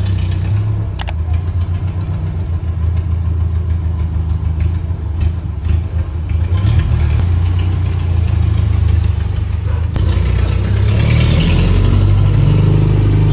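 An engine running steadily with a deep, loud hum, with one sharp click about a second in.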